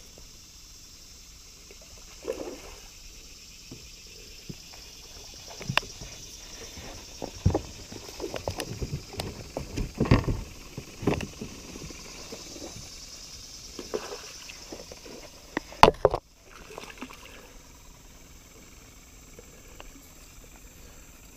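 Irregular knocks and clatter of gear against a plastic kayak hull as a rod and landing net are handled, busiest in the middle, with a sharp loud knock near the end after which the sound cuts out for a moment. A steady high hiss lies underneath.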